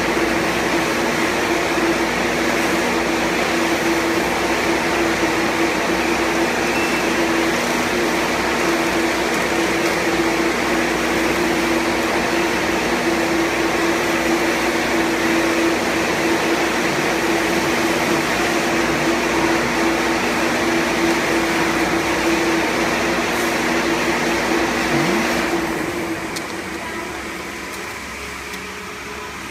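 Screw air compressor running with a steady hum over a broad hiss. About 25 seconds in, the hum stops and the sound drops to a quieter, lower level.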